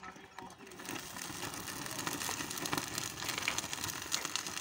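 Thermit (thermite) charge burning in a crucible over a rail joint: a rushing hiss full of sharp crackles from the sparks. It swells about a second in and stays up.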